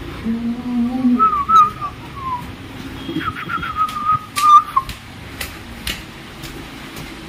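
A person whistling a short wavering tune in two phrases, the second near the middle, over scattered sharp clicks and taps of footsteps on tiled stairs. A brief low hummed note comes just before the first phrase.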